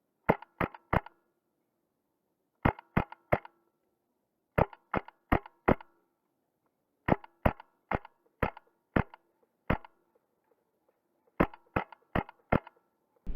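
Wolverine MTW HPA airsoft rifle firing on semi-auto: about twenty sharp shots in five short strings of three to six, roughly three a second within a string.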